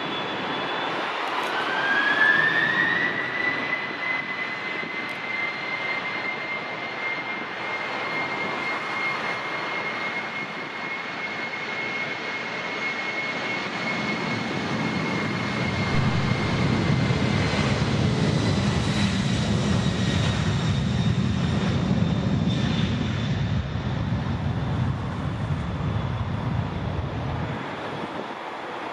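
Boeing 747-8F freighter's four GEnx jet engines. A whine rises in pitch about two seconds in and then holds steady; from about halfway a deep rumble of high thrust builds, then drops away near the end.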